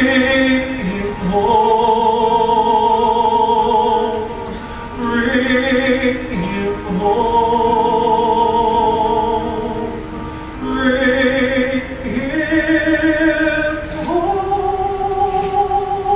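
Music: a singer in operatic style holding long notes with vibrato, in phrases of a few seconds each.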